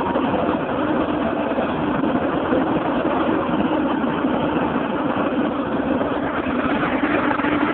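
Engine of a truck-mounted crane running steadily as the crane hoists a shipping container off the flatbed, with a constant low hum throughout.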